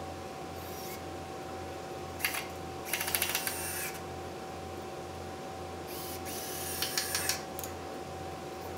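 Cordless drill/driver driving screws into 2x4 framing lumber in two short bursts, one about two seconds in and one about six seconds in, each ending as the motor winds down.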